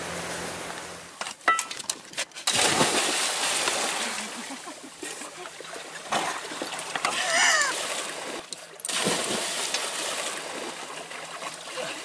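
Sea water splashing as swimmers jump from a sailboat into the sea: a big splash about two and a half seconds in and another near nine seconds, with a short whooping cry between. The low hum of the boat's engine cuts out about a second and a half in.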